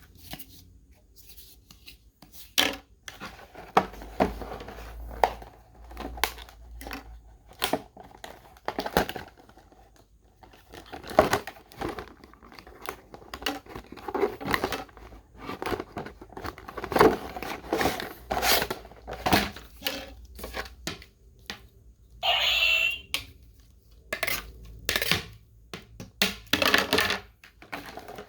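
Toy packaging being handled and opened: scattered clicks, taps and crinkles of plastic and cardboard, with one tear lasting about a second roughly three quarters of the way through.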